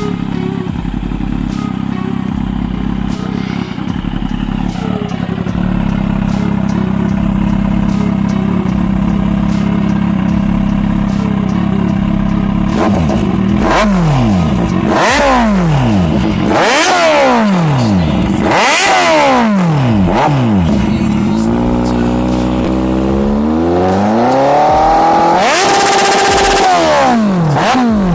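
Kawasaki Z800 inline-four engine through a Hurricane aftermarket exhaust, very loud: it idles steadily for about twelve seconds, then is blipped in a series of quick revs that rise and fall. Near the end it climbs more slowly to a high rev, is held there for a couple of seconds, then drops.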